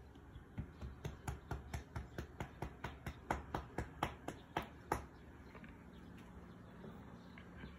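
Cat licking with quick, even strokes, a run of sharp wet clicks about three or four a second that stops about five seconds in.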